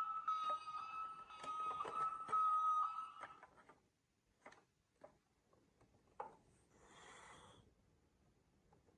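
A steady electronic toy-like tone with clicks over it, stopping a little over three seconds in, then scattered sharp clicks of marbles knocking on a wooden marble run and a brief rattle about seven seconds in.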